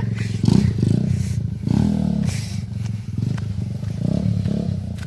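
Honda Megapro single-cylinder four-stroke engine in a trail motorcycle running at low revs, its pitch rising and falling several times as the throttle is worked.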